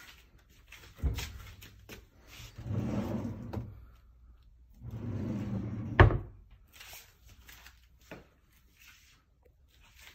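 Office cabinet door and drawers being opened and shut. There is a knock about a second in, then two rolling slides; the second slide ends in a sharp bang about six seconds in, the loudest sound of all.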